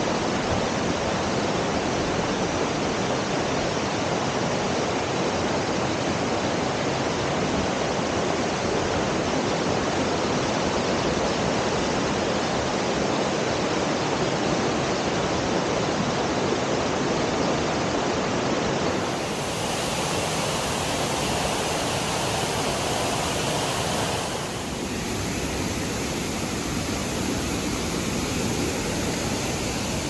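Waterfall: a steady rush of falling water, shifting slightly in level and tone about two-thirds of the way through and again a few seconds later.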